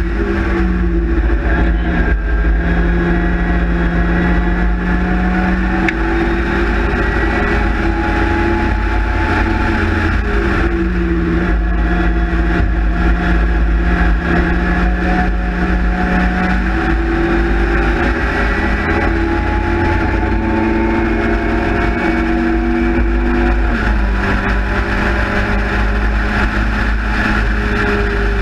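Small four-cylinder engine of an open-top race car running hard at high revs, heard from the cockpit under heavy wind and road rumble. The engine note climbs and then drops back three times, about a second in, around ten seconds in and near the end, as the driver lifts off and changes gear.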